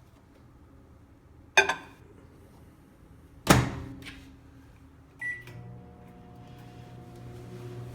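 Sears Kenmore 1100 W microwave oven: a short clatter, then the door shut with a loud bang, a single short keypad beep, and the oven starting up and running with a steady hum.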